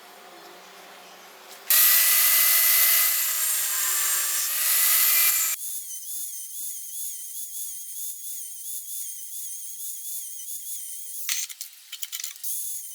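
A power tool works metal: a loud run of about four seconds, then a high, wavering whine that goes on, broken by a few sharp sounds near the end.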